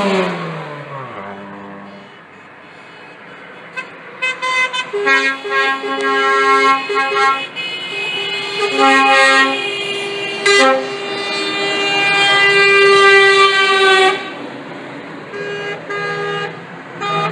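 Passing lorries sounding their air horns in a string of short and long blasts, one held for about three seconds near the middle. Before that, a passing vehicle's note drops in pitch as it goes by.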